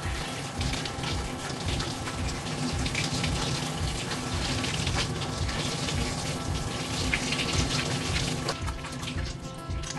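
Water spraying from a handheld shower head, rinsing a wet cat in a stainless steel grooming tub; the spray cuts off near the end. Background music with a steady beat plays underneath.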